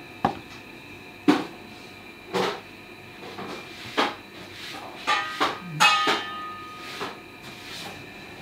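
Kitchen knife chopping cucumber on a wooden cutting board, a few separate sharp knocks, then a quicker cluster of clattering knocks with a brief metallic ring a little past halfway, over a steady background hum.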